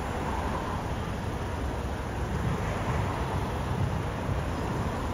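Steady street ambience: traffic rumble under a continuous wash of city noise, with no single event standing out.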